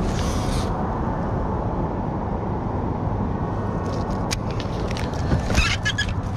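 A steady low rumble of background noise runs throughout. Near the end a snakehead strikes a topwater frog lure with a sharp, splashy clap at the surface.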